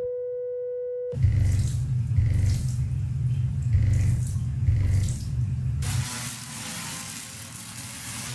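A steady pure tone drives a Rubens flame tube for about a second. Then a deep bass tone pulses from a loudspeaker with a hose's stream of water splashing in front of it. About six seconds in this gives way to the steady hiss of a Tesla coil's sparks.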